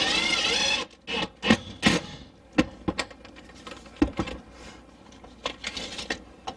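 A power drill driving a screw in one short run of about a second at the start, its whine wavering in pitch, followed by a series of scattered knocks and clicks from handling tools and parts.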